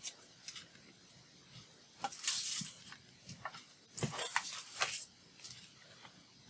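Paper sheets rustling and sliding on a cutting mat as they are handled and moved, with light taps and clicks. There are two louder bouts of rustling, about two seconds in and around four to five seconds in.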